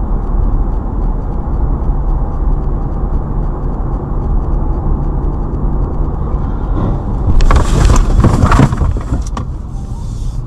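Car cabin driving noise: a steady low engine and road rumble, with a louder rushing noise for about a second and a half about seven seconds in.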